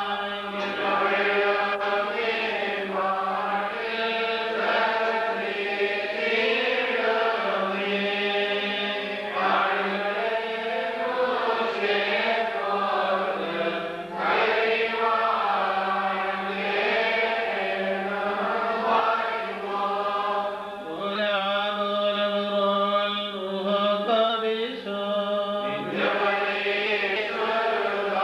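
Liturgical chant: voices singing long, bending melodic lines over a steady low tone.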